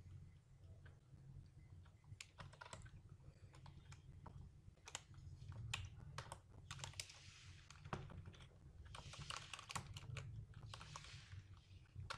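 Computer keyboard typing, faint, with irregular keystrokes in quick clusters over a steady low hum.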